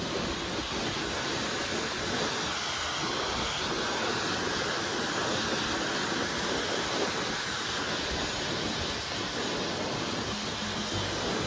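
Dyson Supersonic hair dryer running steadily: a constant rushing hiss of blown air.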